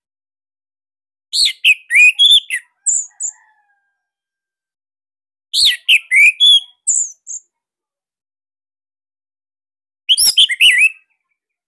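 Orange-headed thrush (anis merah) singing in three short bursts, each a quick run of sharp, sweeping whistled notes with some very high ones, separated by a few seconds of silence.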